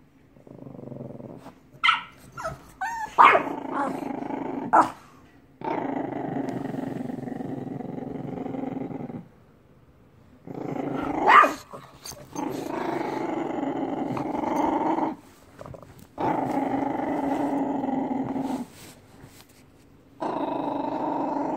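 Pug puppy play-growling in a run of long growls, each about two to four seconds, with a few short, high yips in between, mostly in the first few seconds.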